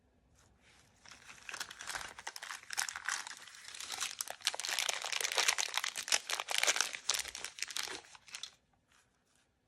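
Crinkly blind-bag packaging crumpled and crinkled by hand: a dense crackle that starts about a second in and stops about a second before the end, followed by a couple of faint ticks.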